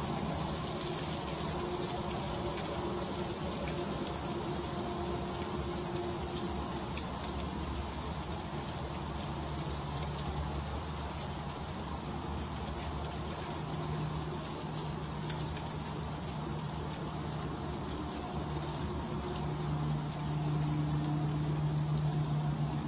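Freezing rain falling steadily, a dense pattering of fine ticks of drops and ice on surfaces. A low hum runs underneath and grows a little louder near the end.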